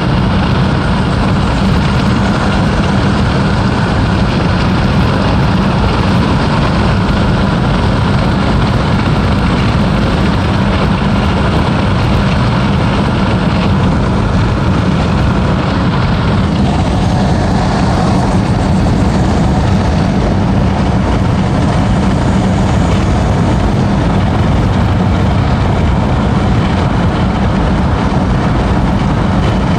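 Mazdaspeed6's 2.3-litre turbocharged four-cylinder running steadily while the car is under way, with a low drone and road noise. The tone shifts a little past halfway.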